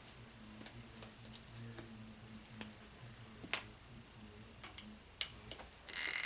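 Irregular light clicks and ticks of small hand tools and metal parts being handled while a wheel is taken off an RC crawler, over a low steady hum.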